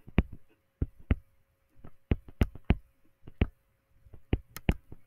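Stylus tapping and clicking on a digital writing surface while writing by hand: about fifteen sharp taps in an uneven rhythm, several a second.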